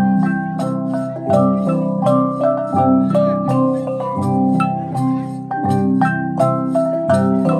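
Vietnamese Central Highlands cồng chiêng gong ensemble playing a rhythmic xoang dance piece: many interlocking struck gong tones repeat in a steady pattern over a deep low gong beat about every one and a half seconds.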